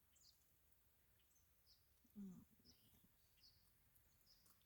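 Near silence: faint, scattered high bird chirps, with one brief low murmur of a voice about two seconds in.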